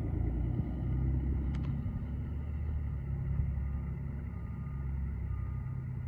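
High-rail truck's engine running as it backs slowly along the rails, a steady low rumble, with faint intermittent beeping over it.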